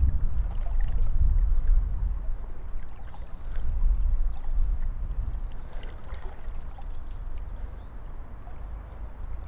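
River water swirling and lapping around a wading angler's legs, with a low rumble that eases off over the last few seconds.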